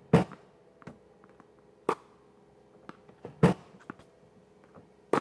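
Tennis balls being fed by a ball machine and hit back with a racket: four sharp pops about one and a half to two seconds apart, with fainter ticks between.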